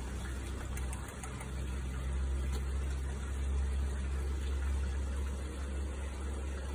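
A steady low mechanical hum, like a motor running, with no clear change in pitch or rhythm.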